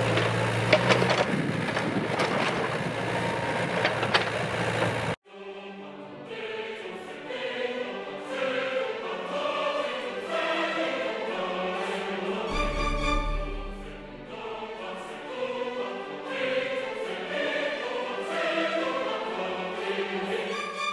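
A Komatsu excavator's diesel engine running with clattering knocks of demolition for about five seconds, then an abrupt cut to classical choral music: a choir singing with instruments.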